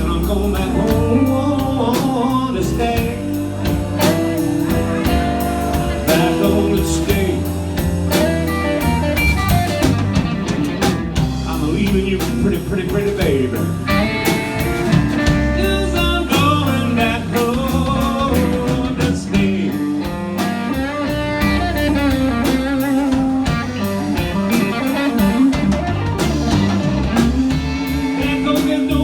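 Live blues band playing a slow blues, with electric guitar lead lines over bass and drum kit.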